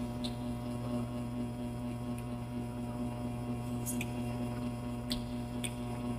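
Steady electrical hum, with a few faint, short wet clicks of chewing juicy pineapple.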